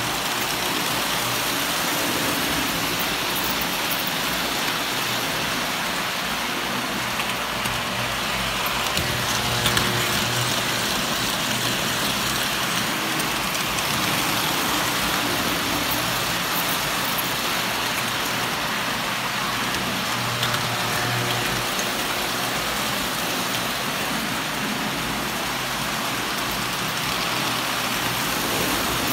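Standard gauge tinplate toy trains running on three-rail tinplate track: a steady, even rattle and rumble of metal wheels on the rails, with a low hum under it.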